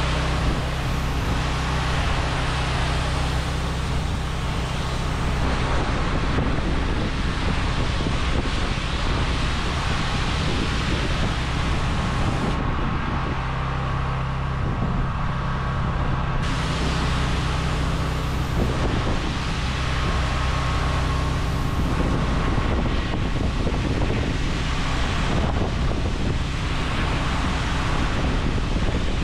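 Engine-driven pressure washer running steadily, its water spray hissing while rinsing soft-wash treatment off render after the dwell time. The high hiss of the spray drops away for a few seconds about halfway through, while the engine keeps running.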